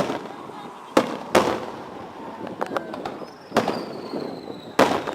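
Aerial fireworks bursting at a public display: about five loud bangs, each with an echoing tail, mixed with smaller cracks. A thin whistle glides downward in pitch from a little past the middle.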